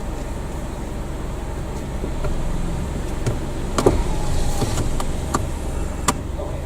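Car running at low speed, a steady low engine and road rumble, with a few sharp clicks and knocks; the loudest is about four seconds in.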